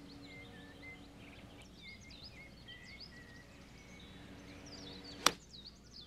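A single sharp click of a 9-iron striking a golf ball about five seconds in, over birds chirping.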